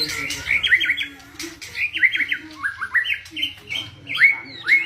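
White-rumped shama (murai batu) singing a fast run of short, repeated chirping notes, in phrases broken by brief pauses.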